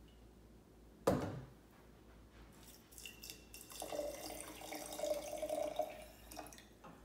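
A single knock about a second in, then water poured from a metal measuring cup into a glass jar, splashing and trickling for about three seconds.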